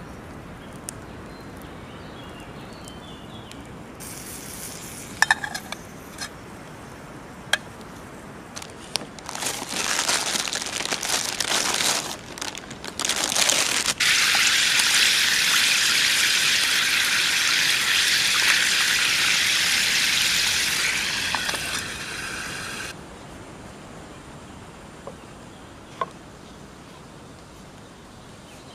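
Burger patties of ground meat frying in a pan over a campfire: patchy sizzling with a few sharp clicks, then a loud steady sizzle for several seconds that drops away near the end.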